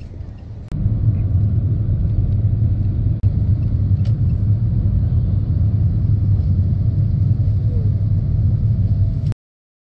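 Steady low rumble of a car driving, heard from inside the cabin. It starts suddenly about a second in and cuts off abruptly near the end.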